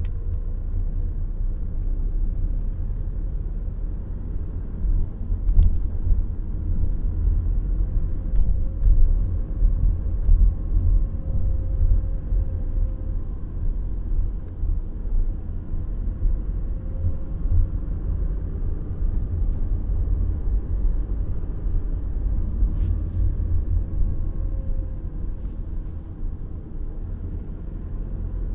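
Mercedes C 200 d estate on the move: a steady low rumble of its four-cylinder diesel engine and tyres, with a faint engine tone that rises and falls as the revs change. A few faint ticks come through now and then.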